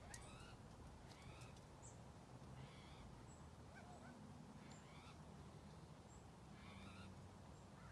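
Faint, short chicken calls, about five of them spaced a second or two apart.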